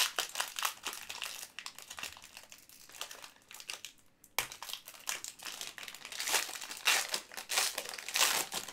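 Trading card pack's wrapper crinkling and rustling as it is handled and opened, in irregular bursts with a short lull about four seconds in.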